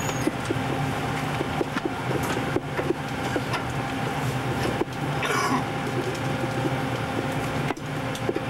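Steady hum of a warship's machinery and ventilation inside a below-decks compartment, with scattered light clicks and knocks and a brief higher-pitched sound about five seconds in.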